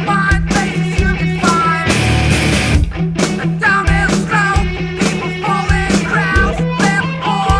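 Post-hardcore indie rock band recording: electric guitars, bass and drums playing, with a short guitar figure repeating about twice a second over a steady bass line.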